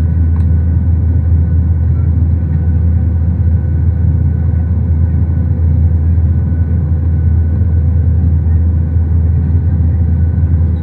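Steady airliner cabin noise: a loud, even low rumble with little hiss above it, played as a noise-cancellation test sample. It cuts off sharply at the end.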